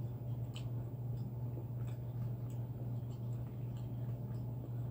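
Chewing a mouthful of food, heard as soft, irregular clicks and small wet mouth sounds over a steady low hum.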